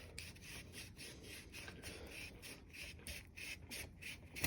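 Faint, irregular rubbing and scraping as a BMX seat post is worked out of the frame's seat tube after its clamp has been loosened.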